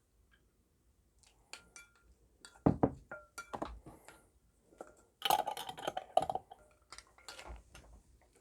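Ice cubes clinking and knocking against a drinking glass in a series of sharp clicks, some ringing briefly, with a louder cluster of clinks about five seconds in.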